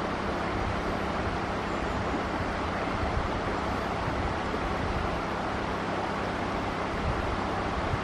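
Steady rushing of a shallow stream flowing over a rocky bed, with low rumbling beneath.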